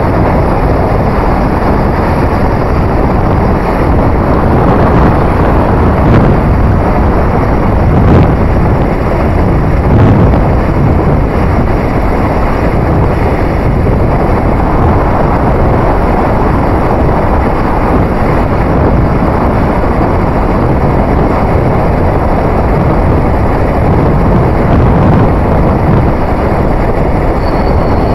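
Steady wind rush and road noise on the microphone of a moving vehicle, swelling briefly a few times.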